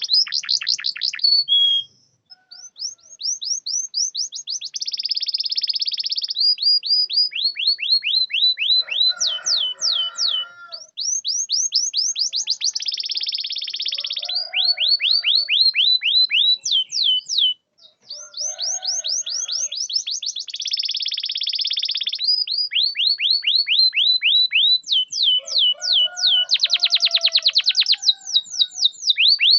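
Domestic canary singing long song phrases: fast trills of rapidly repeated down-slurred notes that run on for several seconds, mixed with buzzy rolls and a few lower notes, broken by short pauses.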